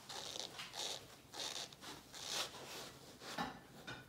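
Quail eggs being pushed by hand into the holes of a foam egg rail: soft rubbing and swishing of fingers and eggs against the foam, about once a second, with a light knock near the end.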